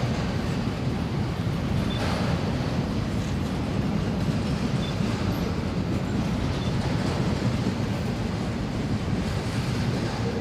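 Freight train rolling past, a steady low rumble of its wagons on the rails.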